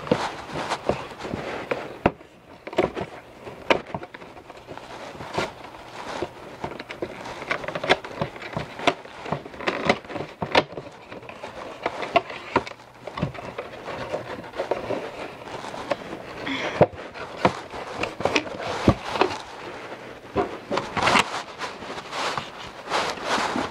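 Cardboard and plastic packaging of a trading-card collector's box being handled and opened, with irregular rustling, crinkling and sharp clicks and taps.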